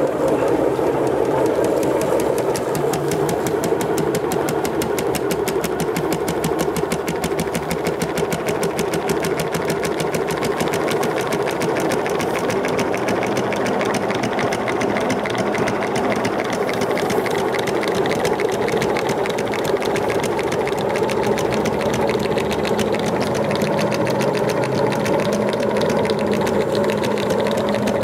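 Old washing machine's series motor running steadily, spinning the drum with a fast, even rattle.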